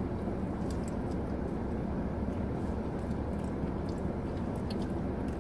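Steady low rumble inside a car's cabin, with a few faint clicks as two people chew gummy candy.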